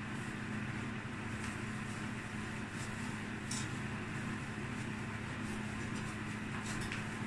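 A steady low mechanical hum runs throughout, with a few faint crinkles of plastic food-prep gloves and a lumpia wrapper being handled and rolled.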